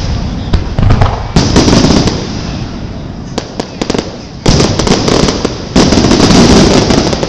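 Aerial firework shells bursting: sudden loud booms about a second and a half, four and a half and six seconds in, each trailing off in a long echoing tail, with a quick run of small crackling pops between them.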